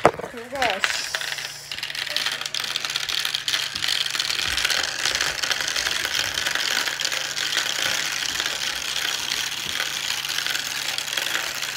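Marbles rolling and clattering down a clear plastic marble run, a dense continuous rattle of small clicks through the tubes and zigzag ramps that starts about a second in.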